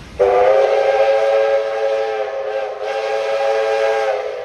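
Steam locomotive's whistle blowing one long blast of about four seconds, a chord of several notes sounding together.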